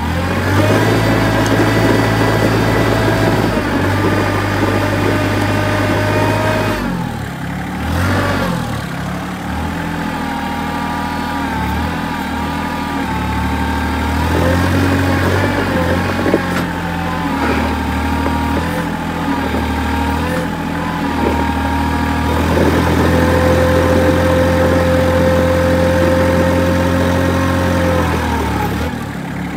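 Tractor engine running under the load of its backhoe hydraulics, which are pulling on a seized bus wheel hub. The engine speed steps up and down several times, with a steady high whine held for a few seconds near the end.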